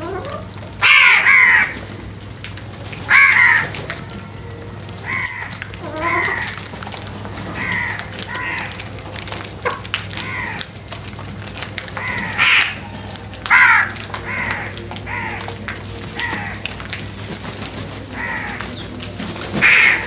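House crows cawing: about a dozen harsh calls come one after another, with loud ones about a second in, near three seconds, twice in the middle and at the very end.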